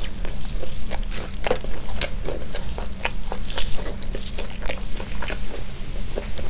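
Close-miked chewing of skewered fried food: a steady run of short wet clicks and smacks from the mouth, over a low steady hum.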